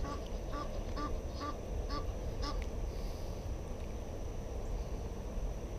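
A bird calling a run of about six short, evenly spaced notes, roughly two a second, which stop about halfway through, over a steady low background rumble.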